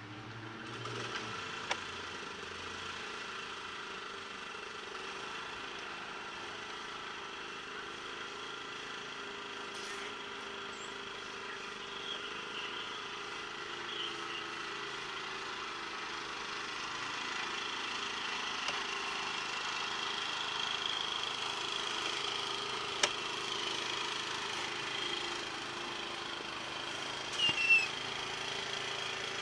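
A steady mechanical drone with a few fixed pitches, growing slightly louder, broken by a couple of sharp clicks.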